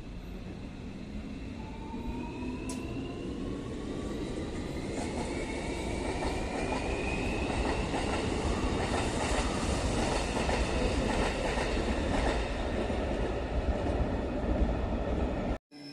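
Electric train running past, its rumble building steadily, with the motor whine rising in pitch as it gathers speed. The sound cuts off suddenly just before the end.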